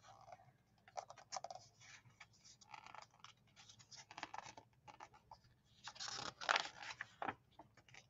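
Paper rustling as a page of a hardcover picture book is handled and turned by hand, with the loudest swish of the turning page about six seconds in.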